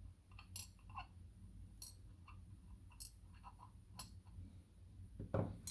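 Small lock pins tipped out of a padlock and handled in a pinning tray: a few light, sparse clicks, roughly one a second.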